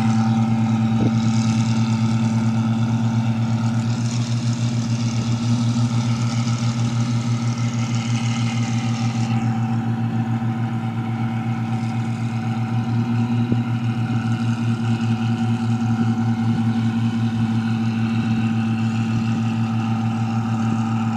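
A rice machine's engine running steadily at constant speed, a loud even drone with no change in pitch.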